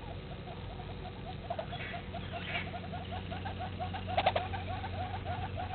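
An animal calling in a rapid, steady series of short notes, about six a second, from the waterside. A louder call breaks in about four seconds in.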